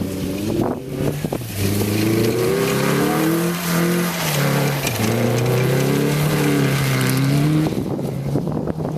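Car engine revving hard under acceleration, pitch climbing, dropping about four seconds in, then climbing again before easing off near the end.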